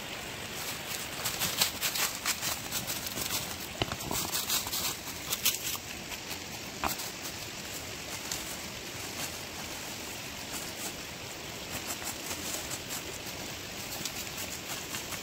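Dry leaves crackling and rustling as a person moves and handles the leaf litter on a stony riverbank, with many crackles in the first several seconds and fewer later. A steady rush of the river's flowing water runs underneath.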